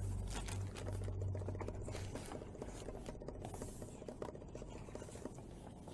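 Soft rustling and scraping of paper as the pages of a handmade journal are turned by hand and smoothed flat.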